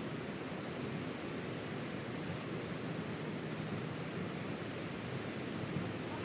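Steady rushing of a flowing river, an even noise with no separate events.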